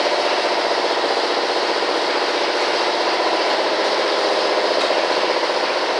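Shop machinery running steadily: an even, unbroken mechanical noise with little low rumble, unchanging throughout.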